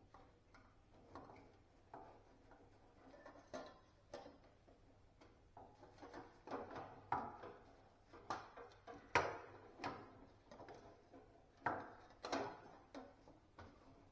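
Irregular clicks and knocks of a storm-bent awning pin being handled and bent straight by hand. The knocks are louder about nine and twelve seconds in.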